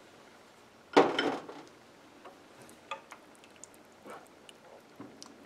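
Stirring shredded chicken into thick gravy in a metal saucepan with a spatula: one loud clatter about a second in, then a few light knocks against the pan.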